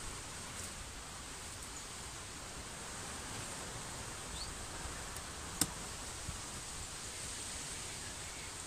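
Faint rustling and sliding of a wooden-framed varroa bottom board being drawn out from under a wooden beehive, over a steady outdoor hiss, with one sharp click about five and a half seconds in.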